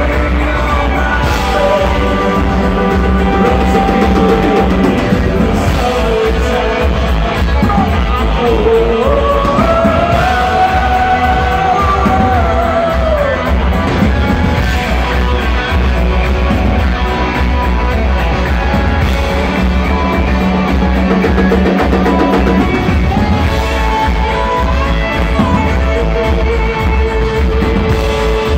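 Live rock band playing: a male lead singer over strummed acoustic guitar, electric guitar and drums.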